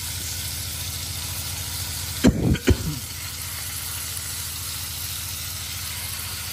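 Battered pieces frying in hot oil in a black pan, a steady sizzle throughout, with two short knocks a little over two seconds in.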